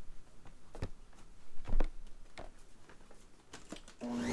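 A few scattered light clicks and knocks, then near the end the motor of a Hoover Convertible U4387 upright vacuum switches on with a hum and starts to spin up, its whine rising in pitch.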